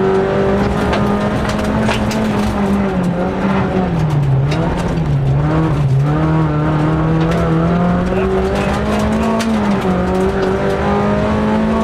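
Rally car engine heard from inside the cockpit, driven hard at high revs. The pitch falls away a few seconds in, climbs back, and steps up and down with the gear changes, over road and tyre noise and frequent sharp rattles and clicks.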